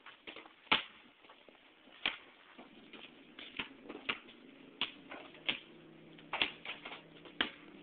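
Basketball being bounced on a paved court: a series of sharp single bounces at irregular intervals, about one a second.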